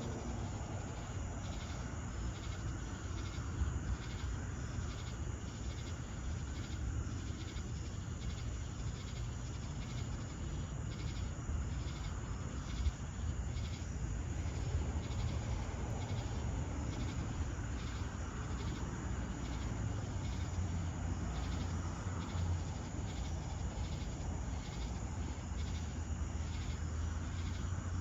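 Summer night chorus of crickets and other insects, a steady pulsing chirr repeating about once or twice a second, over a continuous low rumble.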